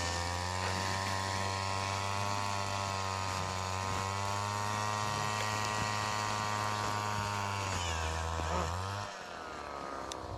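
A small engine running steadily at one speed, then dropping in level with its pitch sliding down about nine seconds in.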